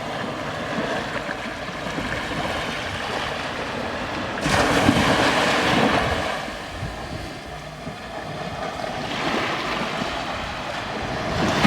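Ocean surf washing onto the beach, with wind buffeting the microphone; the rushing noise swells louder about four and a half seconds in and again about nine seconds in.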